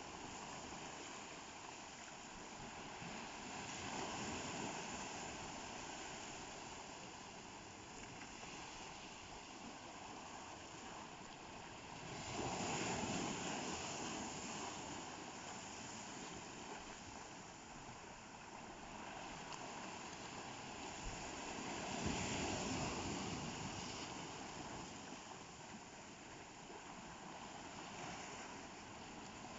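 Ocean waves: a steady rush of surf that swells louder three times, a few seconds in, about halfway through, and about two-thirds of the way through.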